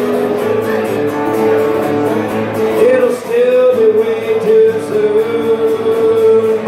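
A country song performed live: a man singing long, held notes to his own strummed acoustic guitar.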